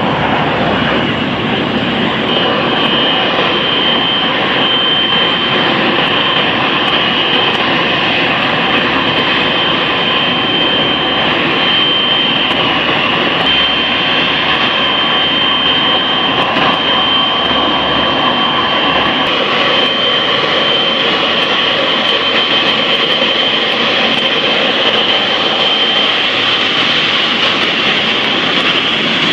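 Jet airliner engines running loud and steady: a continuous rush with a high whine held on top.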